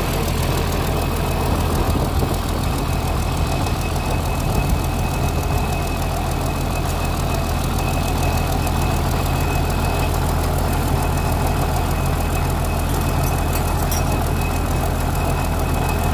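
Turbocharged six-cylinder diesel engine of a JCB 210 excavator idling steadily, a constant low rumble.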